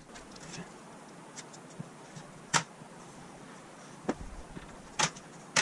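Plastic clips snapping free as a white plastic frame strip is pried off the edge of an LED TV panel: four sharp clicks spread through a few seconds, with fainter ticks and scraping between them.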